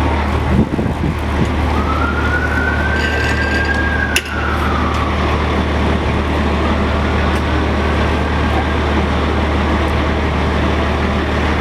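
An emergency vehicle siren in a slow wail, rising and falling twice, the second time fainter, over a steady low rumble of vehicles. A sharp click about four seconds in.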